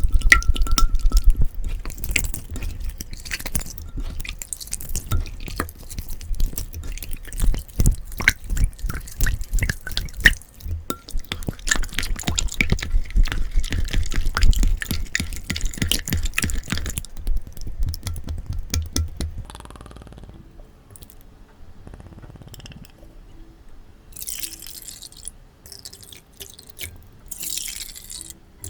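Slime being squeezed and played with by hand, a dense run of wet clicks and pops with low thuds. About twenty seconds in it turns quieter, with sparser, softer clicks.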